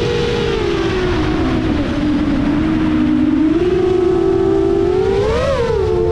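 7-inch FPV quadcopter's Emax Eco II 2806.5 motors spinning HQ 7x3.5x3 propellers, a whine of several close pitches over wind rush. The pitch sinks as throttle eases, climbs back a little after the midpoint, and jumps to a brief high peak near the end as the throttle is punched, then drops back.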